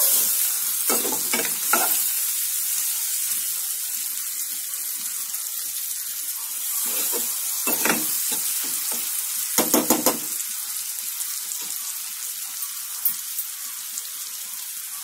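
Chopped onions, green chillies and dried prawns sizzling in hot oil in a non-stick pan, with a steel spatula scraping and knocking against the pan now and then, loudest in a quick run of knocks about ten seconds in.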